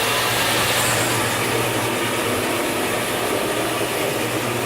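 Woodshop dust collection system running: a steady rush of air through the pipe over a constant low hum.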